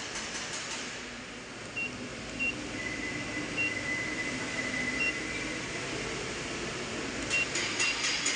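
Keypad beeps from an automatic car A/C recovery and recharge machine as its menu buttons are pressed to choose and set up vacuum mode. There are about six short, high beeps a second or so apart, two of them close together near the end, over a steady background hum.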